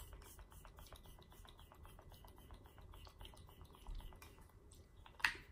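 Faint rapid light ticking for a few seconds, then a single short hissing spritz from a Cover FX setting-mist pump spray bottle near the end.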